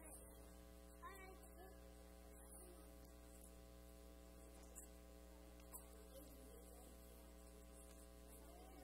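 Near silence: a steady electrical hum from the sound system, with a few faint young children's voices.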